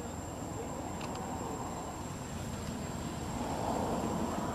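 Steady outdoor background rumble that swells slightly about three and a half seconds in, with a thin, high, steady whine above it.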